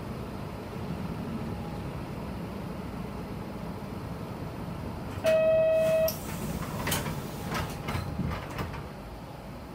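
Nishitetsu bus engine idling with a steady low hum. About five seconds in, a loud warning beep sounds for under a second, then a hiss of air and several clunks as the bus's door mechanism works.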